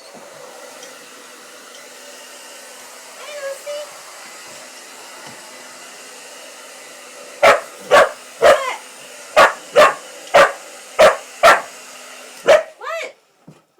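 A hair dryer runs steadily while a pitbull-corgi mix dog barks at it. There is a brief whine about three seconds in, then a run of about ten sharp barks, roughly two a second, starting about halfway through. Near the end the dryer cuts off and the dog gives a whining yelp.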